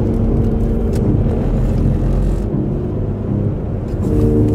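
A vehicle driving, its engine and road noise a continuous low rumble.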